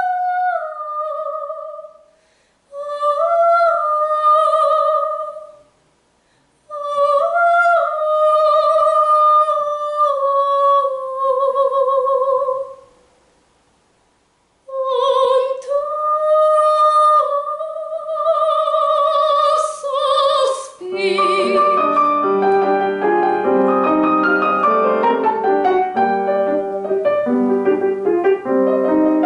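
Operatic soprano singing long held phrases with a wide vibrato, the voice alone, with short pauses between phrases; the first phrase falls in pitch. About 21 seconds in the singing ends and the grand piano plays on in full chords.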